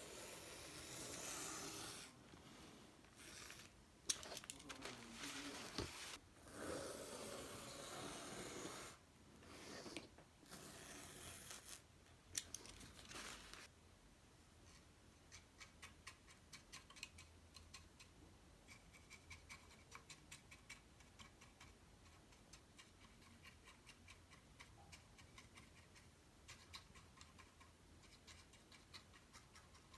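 Quiet hand-work sounds: irregular bursts of rustling and scraping with a few sharp clicks over the first half, then only faint scattered ticks and taps.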